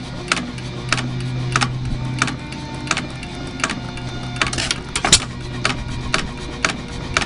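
1 hp IHC Famous single-cylinder, hopper-cooled hit-and-miss engine running, with sharp clicks about every 0.6 s. A louder crack comes about five seconds in.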